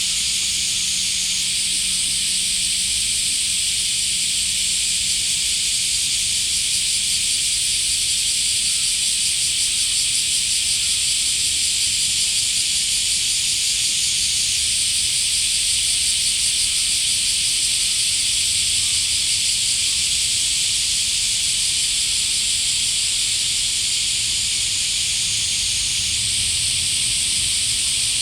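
Dense, steady chorus of cicadas: a loud, unbroken high hiss whose upper band shifts up and down a few times as different insects join and drop out.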